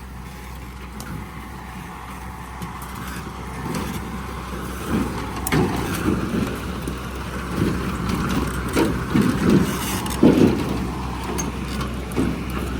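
An old vehicle's engine running steadily, with irregular knocks and rattles that get louder from about four seconds in.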